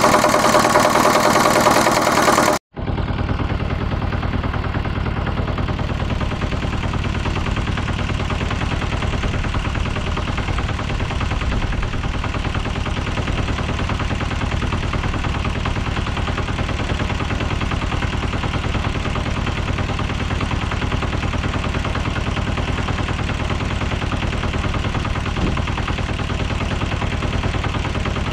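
Homemade tractor's air-cooled single-cylinder engine running steadily with a fast, even putter. It is loud and close for the first couple of seconds, cuts out for a moment about two and a half seconds in, then carries on unchanged and somewhat quieter to the end.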